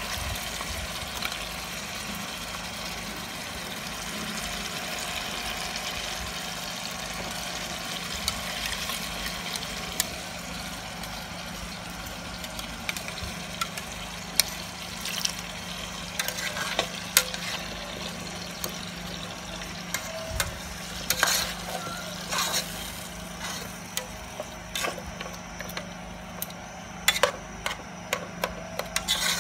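Metal spoon scraping and tapping a plastic bowl as a pepper-and-tomato mix is spooned into a pot of meat, then hands working the mix into the meat, with short clicks growing more frequent in the second half. Underneath runs a steady hiss and a low steady hum.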